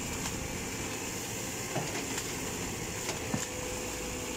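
Caterpillar hydraulic excavator running steadily while it works its boom into a clump of bamboo, with a faint steady whine and a few sharp snaps around two and three seconds in.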